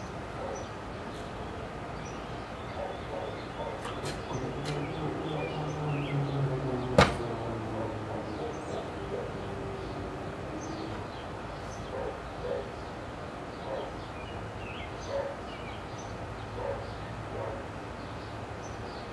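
Railroad crossing gate mechanism running as the gate arm rises, a low steady hum for several seconds with one sharp click about seven seconds in. Birds chirp throughout.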